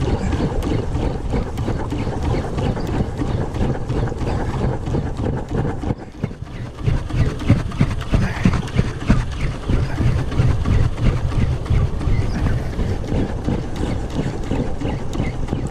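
Wind buffeting the microphone and water slapping against a small boat's hull on open sea: a steady rumbling noise with irregular splashes, easing briefly about six seconds in.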